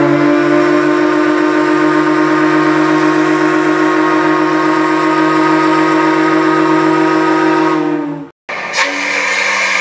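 RMS Teutonic's steam whistle sounding one long, deep, steady blast of several tones together for about eight seconds, then cutting off sharply. Near the end, a brighter, higher ship's whistle, RMS Lusitania's, starts up.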